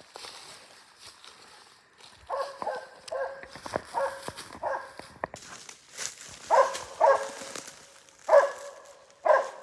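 A West Siberian Laika hunting dog barking, about eight short barks in two bunches, starting about two seconds in.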